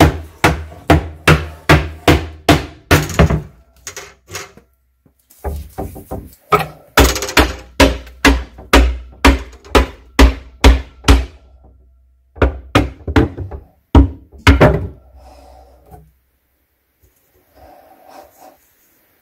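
Claw hammer striking wooden shelf strips inside a kitchen cabinet: quick repeated blows, about three a second, in three runs with short pauses. It ends in a few faint knocks and scrapes.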